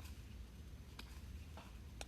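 Faint flicks of baseball trading cards being handled and flipped through one by one: a few soft separate clicks over a low steady hum.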